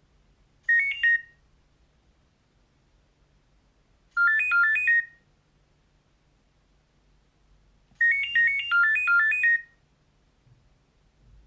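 Nokia 6230i ringtone playing: a phrase of quick, high-pitched melody notes that sounds three times, each time a little longer, with pauses of about three seconds between.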